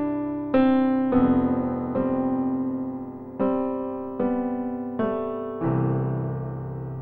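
Background music: a slow keyboard melody in a piano sound, single notes struck about once a second, each dying away. Near the end it settles on a fuller chord that fades out.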